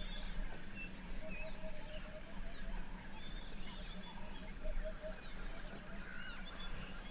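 Birds calling in the bush: many quick chirps and sweeping whistles, with short runs of repeated lower notes, over a steady low hum.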